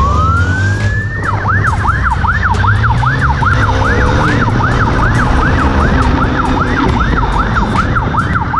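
Police motorcycle siren, sweeping up once in a wail, then switching to a fast yelp of about two cycles a second. Motorcycle engine and wind rumble sit underneath.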